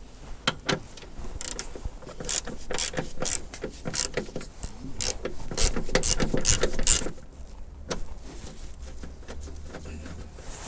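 Ratchet wrench with a 13 mm socket clicking in quick back-and-forth strokes, about two a second, as it undoes the bolt of a car battery's earth cable; the clicking stops about seven seconds in.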